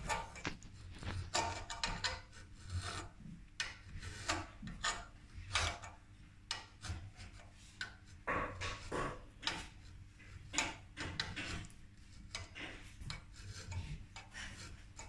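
Flat side of a metal file rounding off the corner of a thin sheet-metal piece clamped in a bench vise: a run of short rasping strokes, uneven, about one or two a second.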